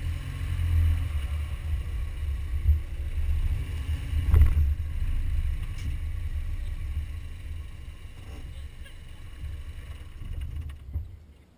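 Wind buffeting and road noise on a camera mounted on the front bumper of a moving car, a low rumble with a single thump about four seconds in. The rumble eases off over the last few seconds as the car slows.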